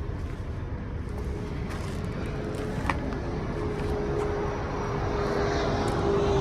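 Engine running steadily: a low rumble with a steady whine that grows louder over the last few seconds.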